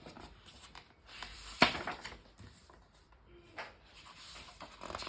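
Paper book being handled and its pages turned: soft rustling and scattered light taps, with one sharp knock about a second and a half in.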